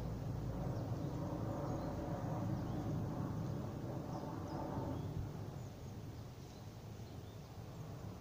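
Forest ambience: a low rushing noise, louder in the first half, that fades about five seconds in, with faint high bird chirps scattered throughout.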